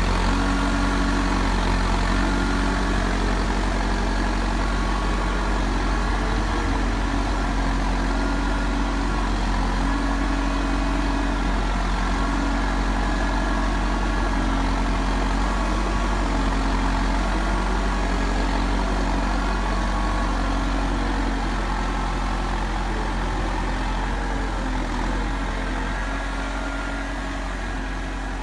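Heavy machine's diesel engine running steadily at low revs, a constant low hum with small wavers in pitch.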